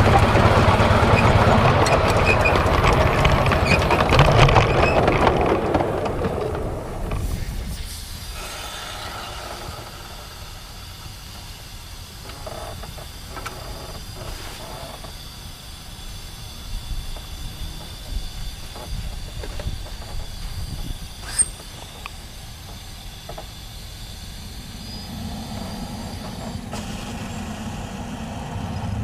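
Miniature 7¼-inch gauge steam locomotive running loudly for the first several seconds, then standing with quieter hissing and scattered clicks, including one sharp click about two-thirds through. The sound builds again near the end.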